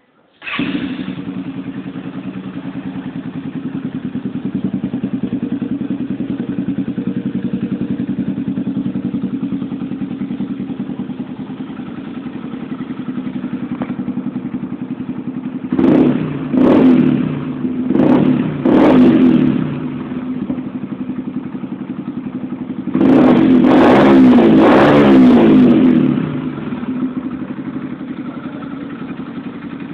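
Yamaha XTZ 125X-E single-cylinder four-stroke engine, breathing through a Roncar aluminium oval aftermarket exhaust, starts about half a second in and idles steadily. Past the middle it is revved in four short blips, then held up for about three seconds before dropping back to idle.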